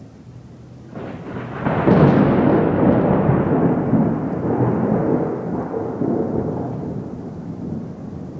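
Thunder from a lightning strike in an electrical storm: it builds about a second in, cracks loudly near two seconds, then rolls on as a low rumble that slowly fades.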